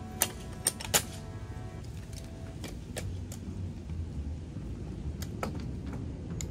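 Telescoping ladder being extended, its sections clicking as they lock into place: a quick run of sharp clicks in the first second, then a few single clicks spaced out later.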